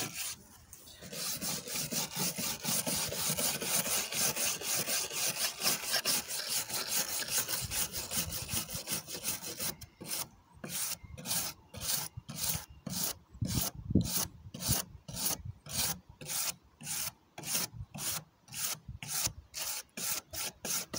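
Wire brush scrubbing the charred surface of wooden table boards in quick back-and-forth strokes: continuous at first, then separate strokes about two or three a second from about halfway. The brushing strips off the burnt, carbonized layer and raises the wood grain after scorching in the shou sugi ban manner.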